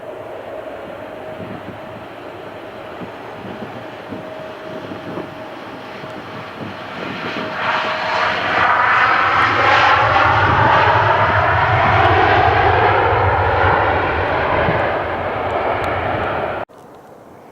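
Jet airliner passing close by, its engine noise swelling to a loud peak about eight seconds in, with whining tones that fall in pitch as it goes past. The sound cuts off suddenly near the end.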